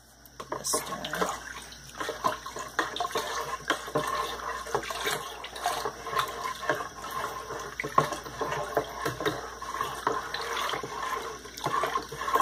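Liquid sloshing and splashing with irregular clicks and knocks as melted paraffin wax is mixed into a bucket of mineral spirits and boiled linseed oil.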